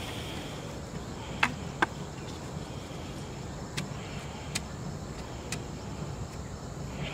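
A few sharp wooden knocks, the two loudest close together about one and a half seconds in, from long wooden sticks being handled and pushed upright into the ground. A steady low background hum runs underneath.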